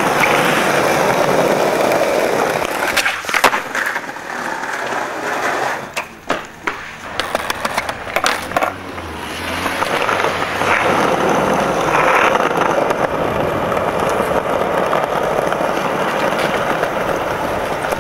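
Skateboard wheels rolling over brick paving, a steady rolling noise, with a few sharp clacks of the board about 3 seconds in and several more between about 6 and 9 seconds in.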